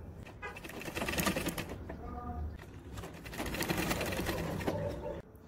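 Sewing machine stitching a seam through fabric: a rapid mechanical clatter in two runs, with a brief slowdown between them around two and a half seconds in, stopping just before the end.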